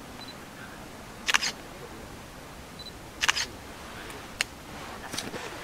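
Camera shutters clicking: a quick double click about a second and a half in, another about three seconds in, then single clicks near the end. A short high beep comes before each of the first two double clicks.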